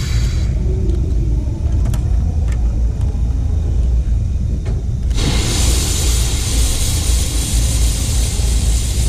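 JNR C56 160 steam locomotive: a steady low rumble with a few faint clicks, then about five seconds in a loud hiss of steam starts suddenly and keeps on.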